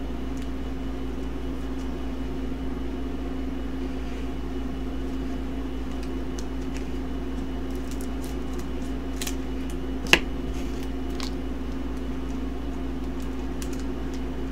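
Steady hum of a room air conditioner. Between about nine and eleven seconds in come a few sharp snips as scissors cut open a foil booster pack, one of them much louder than the rest.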